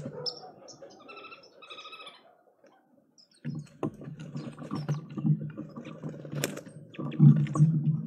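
Birds at a wooden feeder tray. Two short, clear bird calls come about one and two seconds in. After a brief hush, a busy run of clicks and taps with a low rumble begins a little past the middle.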